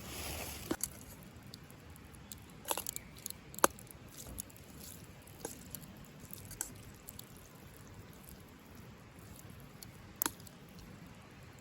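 Scattered light clicks and taps, about half a dozen, over a quiet background, the sharpest a little over three and a half seconds in.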